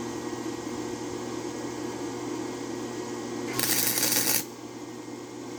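Electric arc welding on steel: a steady crackle, turning louder and hissier for most of a second before the arc stops about four and a half seconds in.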